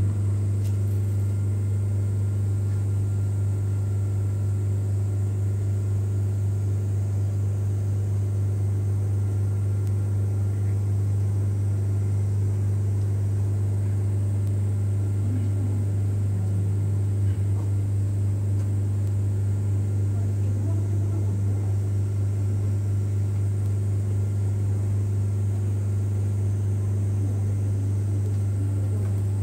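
Steady, unchanging low mechanical hum with a few faint higher tones above it.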